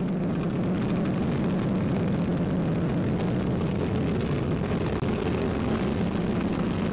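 Arianespace Vega rocket launching, its P80 solid-fuel first stage giving a steady, deep roar through liftoff and climb-out. The roar cuts off suddenly near the end.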